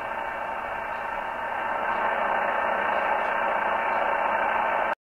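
Static hissing from the speaker of a National NCX-3 vacuum-tube transceiver's receiver tuned on AM, with no station coming through. The hiss gets a little louder about two seconds in and cuts off suddenly near the end.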